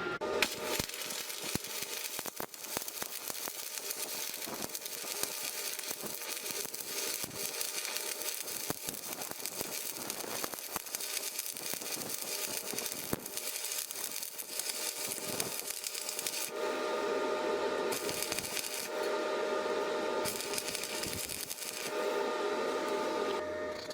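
Electric arc welding: the stick-welding arc crackling and spitting steadily. About two-thirds of the way in, a steady hum with a high tone joins the crackle.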